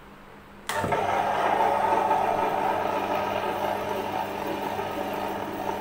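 Table-top wet grinder running steadily, its stone rollers turning in the stainless steel drum and grinding soaked urad dal with water into idli batter. The sound comes in abruptly about a second in.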